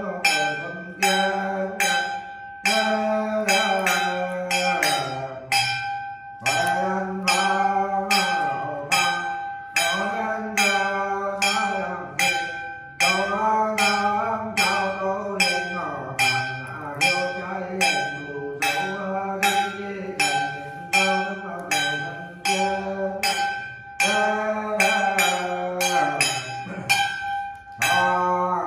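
A Nùng ritual master chanting a misfortune-averting prayer in long, wavering phrases. A small ritual bell is struck in a steady beat under the chant, its ring held throughout.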